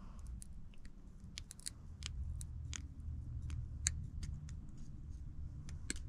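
Pliers cutting and working a plastic push-in cable connector: a string of sharp, irregular clicks and snips over a low rustle of handling.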